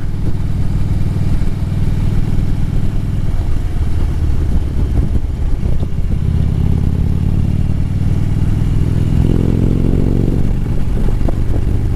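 Harley-Davidson Road Glide's V-twin engine running under way on the road, its pitch rising steadily as it pulls and then dropping back near the end.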